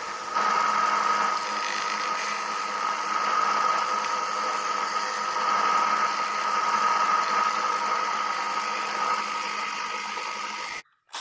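Belt sander running steadily with a constant whine while it shapes cut pieces of 1/4 inch MDF. It gets louder about half a second in as the work is pressed to the belt, and cuts off abruptly near the end.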